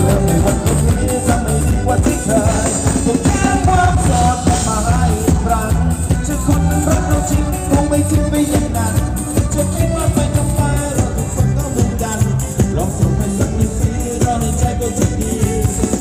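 A live band playing loud amplified Thai ramwong dance music through a PA, with a drum kit keeping a steady beat and a singer's voice over it.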